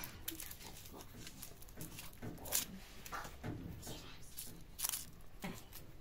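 Irregular light clicks and knocks of things being handled, with the loudest knock about two and a half seconds in and another near five seconds.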